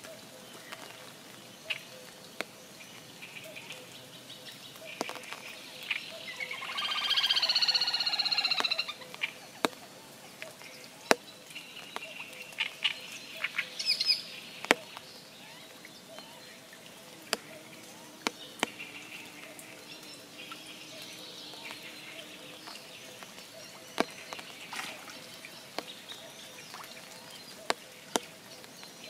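Rain drops falling close by, tapping singly and irregularly. About seven seconds in, an animal gives a loud call of quick repeated notes lasting about two seconds.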